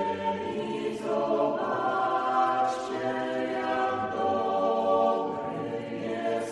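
A choir singing in long held notes that shift every second or two.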